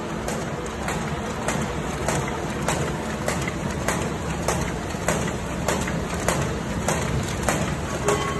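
Paper bag making machine running steadily, a continuous mechanical clatter with a sharp click repeating about every 0.6 seconds as it cycles.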